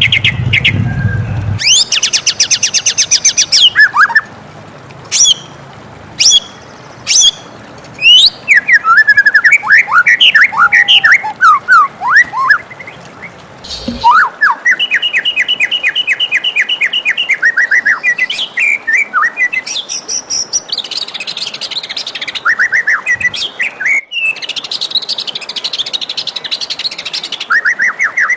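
White-rumped shama singing a long, varied song: rapid trills, clear whistled notes and quick sweeping up-and-down phrases in fast succession, broken by a few short pauses.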